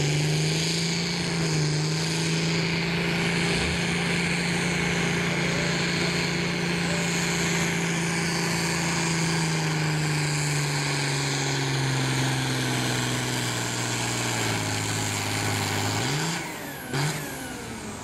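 A farm tractor's diesel engine runs at full throttle, pulling a weight-transfer sled. The engine revs up at the start and holds a steady high note. It then slowly lugs down in pitch as the sled bogs it, and the throttle comes off about sixteen seconds in.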